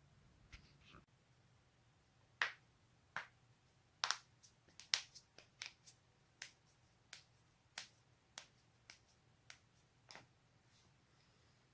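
A rapid, irregular run of about twenty sharp cracking pops from joints being cracked, starting a couple of seconds in and stopping near the end.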